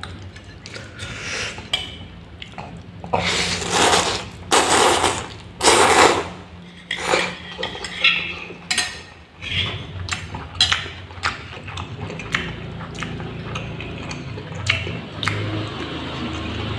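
Close-up eating sounds: spoon and fork clinking and scraping against a plate of fried instant noodles and meatballs, with short sharp clinks throughout and several louder, longer noisy sounds about three to six seconds in.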